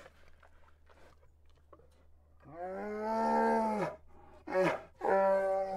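A bear calling: one long drawn-out call that rises and then falls in pitch, followed by two shorter calls near the end.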